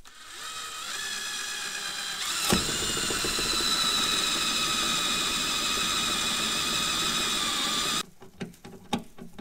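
Cordless drill spinning up and boring a screw hole through a fiberglass car side skirt, its motor whining steadily with a sharp crack about two and a half seconds in. It stops abruptly about eight seconds in, followed by a few light handling clicks.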